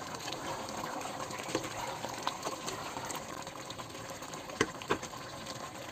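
A pot of beef caldereta simmering on the stove, the thick stew bubbling with a steady soft hiss and a scatter of small pops and clicks, two of them a little louder near the end.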